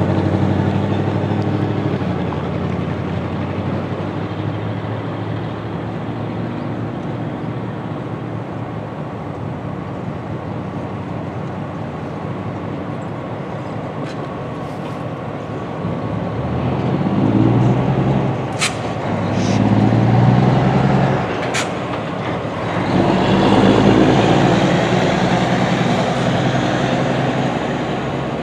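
Diesel-electric locomotives running with a steady low engine hum, then revving up in three loud surges as they start to move. A few sharp clicks come in the middle.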